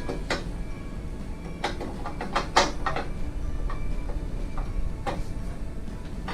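Metal parts of a meat slicer being handled, a string of short knocks and clinks, the loudest about two and a half seconds in, over a low steady hum.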